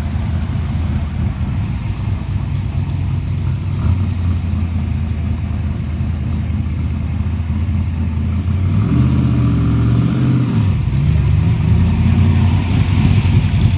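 Low, steady rumble of classic car engines cruising slowly past. One engine revs up about nine seconds in, and another climbs in pitch near the end.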